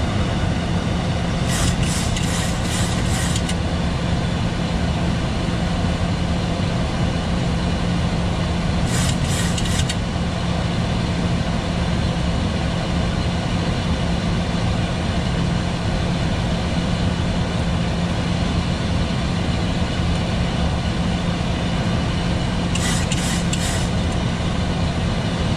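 Steady flight-deck noise of a Boeing 737-800 on approach: airflow and engine sound with a constant low hum. Short bursts of high crackle come three times.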